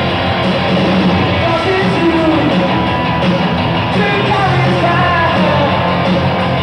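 Punk-rock band playing live and loud: distorted electric guitars, bass and drums going steadily.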